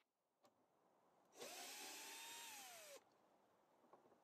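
Metabo cordless drill-driver backing a screw out of a metal door latch, running in one burst of about a second and a half. Its motor whine rises quickly, holds, then falls as it stops.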